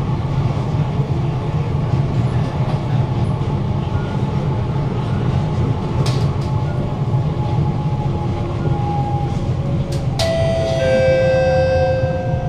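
Interior running noise of a Kawasaki–CRRC Sifang C151C electric metro train: a steady loud rumble of the car on the track. About ten seconds in, a whine of several tones sets in suddenly and slowly sinks in pitch as the train brakes into the station.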